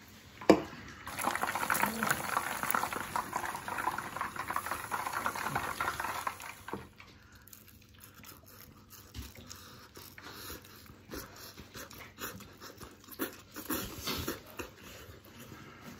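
A sharp click, then about six seconds of a dense crackling hiss that stops suddenly. After it, quieter scattered clicks and moist mouth noises of crunchy fried food being chewed and chopsticks tapping.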